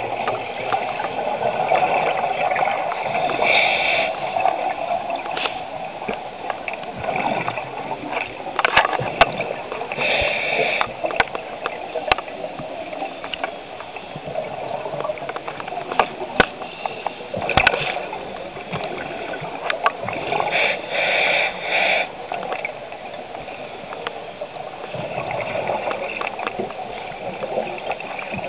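Underwater sound of a scuba diver breathing through a regulator: a steady bubbling gurgle of exhaled air, with short hissing breaths every several seconds.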